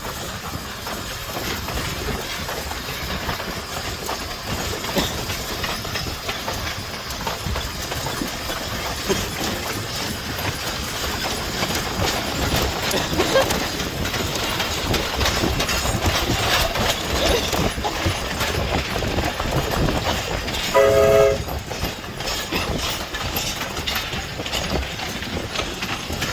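A train rolling past, its wheels clicking and rattling over the rail joints with a steady rumble. About 21 s in, a short blast of a chime-type train horn, under a second long, is the loudest moment.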